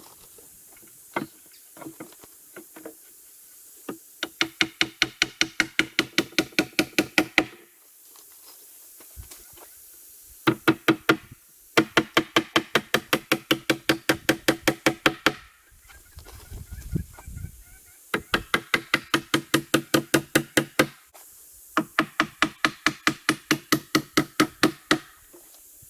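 A hammer driving nails into rough-cut wooden boards, in four runs of quick, evenly spaced blows, about four a second. Each blow rings, and the blows grow louder through each run as the nail goes home.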